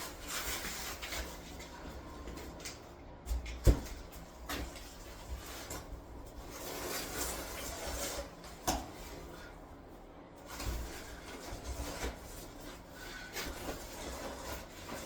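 Trowel scraping and spreading mortar in repeated strokes, with a sharp knock a little under four seconds in and a lighter one near nine seconds.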